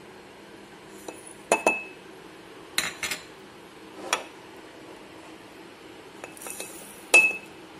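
Glass jar and kitchen containers clinking and knocking as they are handled and set down on a wooden board: about six sharp knocks, two of them with a short glassy ring. Shortly before the last knock comes a brief rush of granulated sugar pouring from a ceramic bowl into the glass jar.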